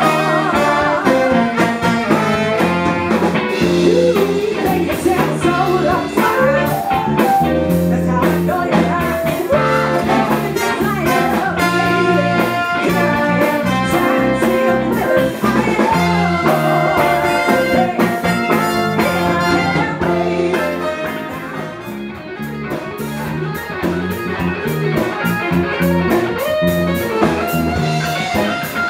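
Live showband playing a soul or funk number, with a singer, horns and a steady electric bass line.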